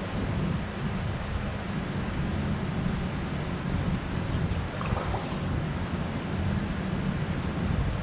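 Wind buffeting the microphone: a steady, fluctuating low rumble with a hiss above it.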